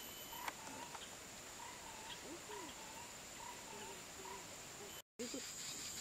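Tropical forest ambience: a steady high-pitched insect drone, with a short wavering call repeated about once a second and a sharp click about half a second in. The sound cuts out for a moment near the end, then the drone returns louder.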